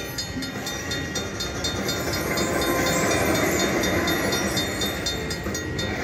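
Slot machine's steam-train sound effect through its speakers: a rushing, hissing train sound that swells in the middle, over steady regular clicking like wheels on rail joints, heralding the Gold Train bonus feature.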